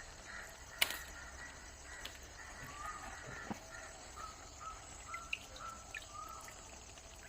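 A bird calling in a run of short repeated notes, about two a second, over steady outdoor background noise. A single sharp click comes about a second in.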